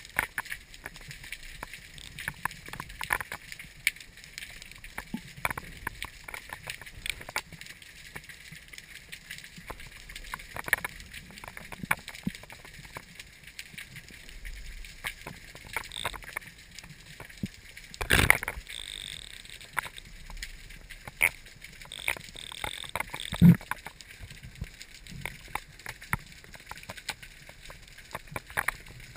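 Underwater sound heard through a camera's housing: a steady hiss with many scattered sharp clicks and crackles, and two louder knocks, about 18 and 23.5 seconds in.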